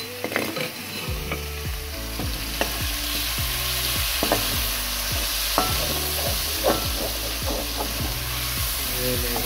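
Chicken pieces frying with a steady sizzle in an aluminium karahi, freshly coated with ginger-garlic paste, while a slotted metal spoon stirs them, scraping and knocking against the pan about once a second.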